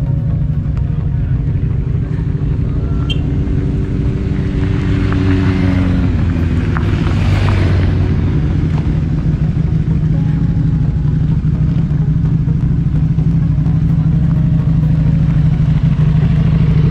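Motorcycle engine running as the bike rides slowly along a dirt track, heard from on the bike: a steady low note whose pitch drops about six seconds in. A brief rush of noise rises and fades around the middle.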